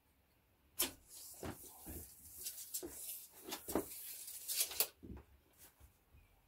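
Handling sounds of a steel tape measure on a PVC pipe: a sharp click about a second in, then a few seconds of scraping and clicking as the tape is slid along the pipe and reeled in, fading to a few faint knocks near the end.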